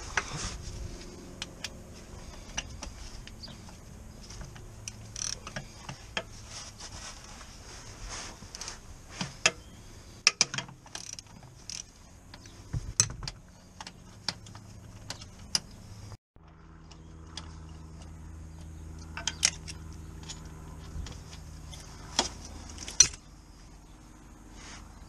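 Hand tools and metal parts clicking and clinking irregularly as a mechanic works up under the gearbox during a clutch replacement. From about sixteen seconds in, a steady low hum runs under the clicks.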